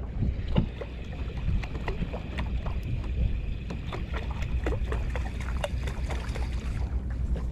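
Aboard a small fishing boat at sea: a steady low rumble with many small irregular knocks and splashes of water against the hull.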